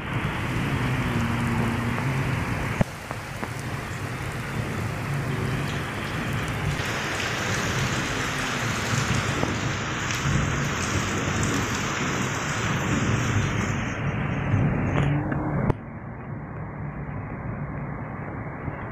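Heavy rain falling, a steady hiss of noise with a low rumble underneath. The level drops suddenly about three seconds in and again near the end.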